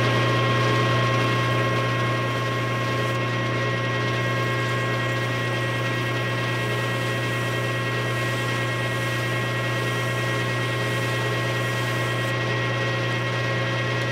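Metal lathe running steadily, a hum with a steady whine over it, spinning a piston wrist pin in its chuck while the pin is polished with fine emery cloth.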